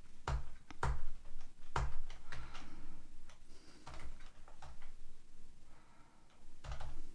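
Computer keyboard keystrokes and clicks: a few separate, irregularly spaced taps, each with a light thud.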